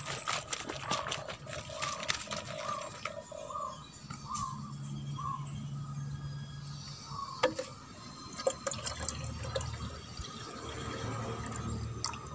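Liquid sloshing and dripping in a plastic basin as a homemade liquid fertiliser mix is scooped and poured, with scattered light clicks and knocks of plastic. A short high chirp repeats about twice a second through the first half.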